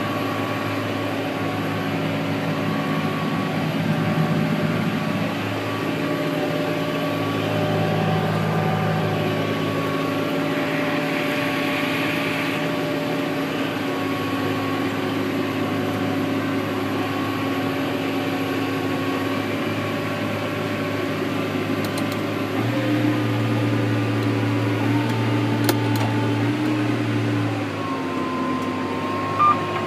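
John Deere 8400T track tractor's diesel engine running steadily under load while pulling a chisel plough working 5 inches deep. Its note shifts a little about two-thirds of the way through, and there is a brief sharp click near the end.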